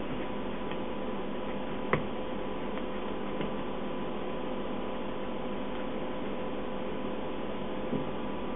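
Steady hum and hiss of kitchen equipment holding a few even tones, with one sharp click about two seconds in and a couple of fainter ticks later.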